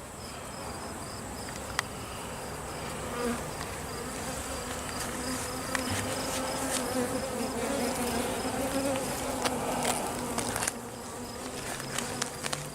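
Honey bees buzzing as a steady hum around an open hive during an inspection, growing louder in the middle and dropping back about eleven seconds in, with a few light clicks.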